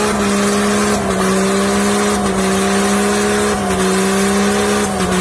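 Lifted pickup truck's engine held at high, steady revs during a burnout, with the pitch dipping slightly a few times, over a harsh hiss of spinning tyres.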